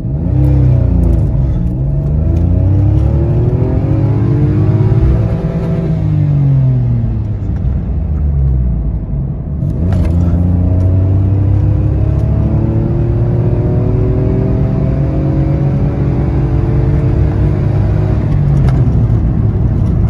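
Citroen C1's 1.0-litre three-cylinder engine, fitted with a restrictive exhaust baffle, accelerating hard from a standstill to 60 mph, heard from inside the cabin. The revs climb and fall through the gears, with a short dip and click at a gear change about ten seconds in.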